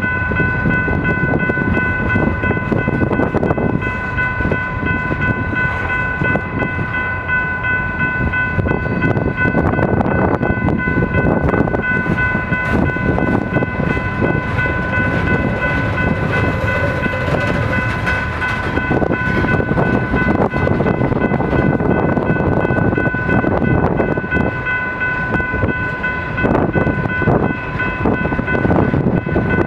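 Freight train's gondolas and tank cars rolling past, with a steady wheel rumble and a busy clatter of clicks from the wheels on the rails. For roughly the first two-thirds a steady high ringing tone sounds over it, then fades away.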